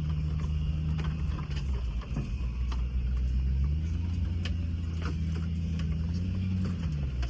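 Land Rover Discovery's engine running at low revs while crawling a rough trail, its pitch dropping and rising as the throttle changes, with scattered light clicks and knocks over it.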